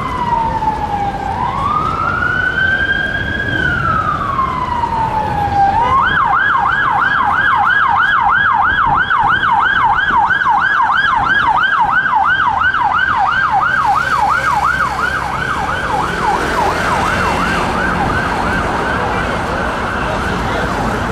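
Police van siren, a Ford Transit Custom, sounding a slow wail that rises and falls for about six seconds, then switching to a fast yelp at about two and a half cycles a second that fades near the end, over city traffic.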